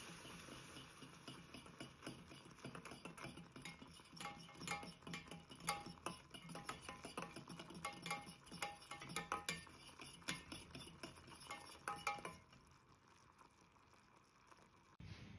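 Metal spoon stirring bubbling caramel in a small stainless-steel saucepan, clinking again and again against the pan over a steady bubbling hiss. The clinks stop about twelve seconds in, leaving only quieter bubbling.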